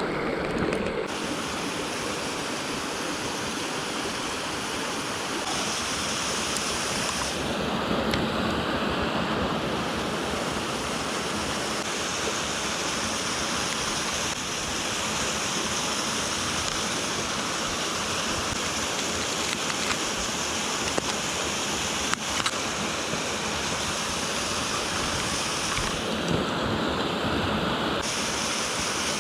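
Mountain stream rushing over rocks: a steady, continuous wash of running water.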